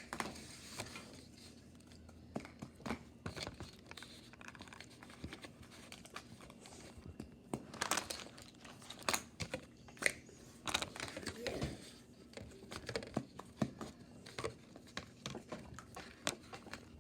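Scattered crinkles, clicks and light taps of plastic Play-Doh tubs, lids and plates being handled on a table. The sounds come irregularly, a little denser around the middle.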